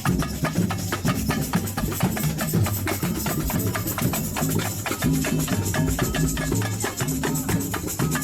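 Samba music with fast, dense percussion: shakers and drums over a moving bass line, in a steady driving rhythm.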